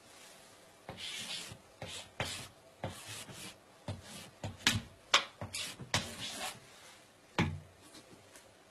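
Chalk scratching and tapping on a blackboard in a run of short strokes as an equation is written out, with a louder knock near the end.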